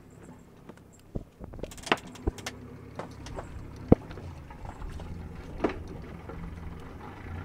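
Sharp knocks and clunks of lines and deck gear being handled and set down in a sailboat's cockpit, about five separate hits with the loudest near the middle, over a low steady hum.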